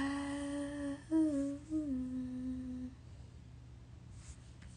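A woman humming three held notes with closed lips, a short higher one between two longer ones, stopping about three seconds in.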